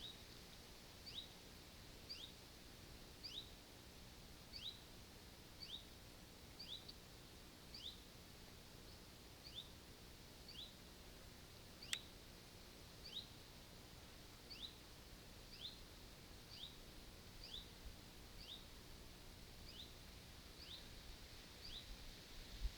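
A small bird calling over and over, faintly, about once a second; each call is a short high note followed by a quick falling note. A single sharp click about halfway through.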